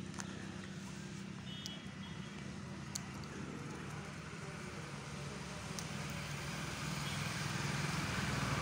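A motor vehicle's engine running steadily, growing louder in the last few seconds.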